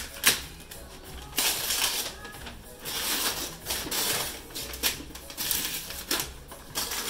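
Wrapping paper being torn and pulled off a large cardboard box: a sharp click just after the start, then several long stretches of ripping and crinkling paper.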